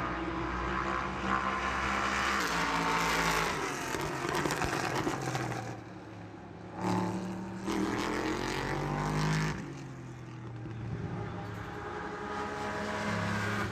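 Race car engines running at speed, their pitch rising and falling as they go by, with quieter stretches about six seconds in and again near ten seconds in.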